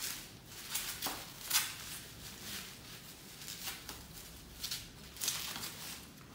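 Clear plastic bag and bubble wrap crinkling and rustling in irregular bursts as they are pulled off a car side mirror by hand.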